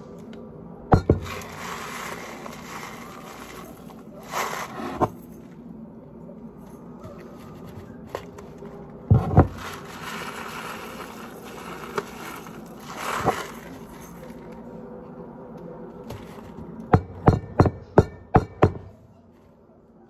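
Uncooked rice poured from a plastic bag into a glass measuring cup: a grainy hiss in several pours, with the bag crinkling. A quick run of about six sharp knocks comes near the end.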